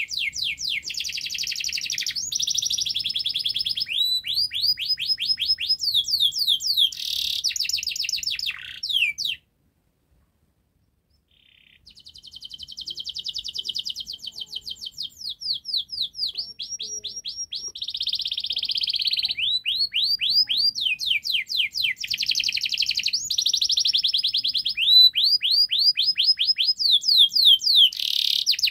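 Domestic canary singing a long, fast song of rapidly repeated sweeping notes and trills. It stops dead for about two seconds partway through, then starts again.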